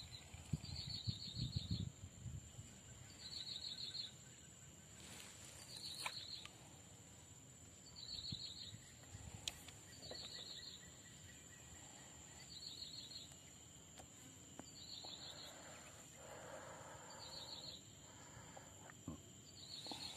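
Insects calling: a steady high-pitched whine, with a short rapid pulsed chirp that repeats every one to two seconds. A faint low rumble sounds in the first two seconds.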